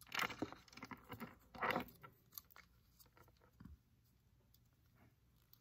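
Faint rustling and crackling as small plastic toy pieces and their packaging are handled, strongest in the first two seconds, then a few soft clicks.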